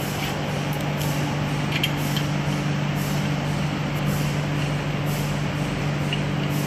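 Steady machine hum over a constant hiss, with a couple of faint light clicks about two seconds in.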